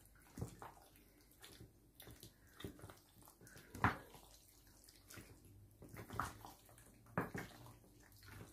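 Two wooden spoons tossing sauced macaroni in a glass baking dish: soft wet squelches and scattered short knocks of the spoons against the dish, the loudest about four seconds in.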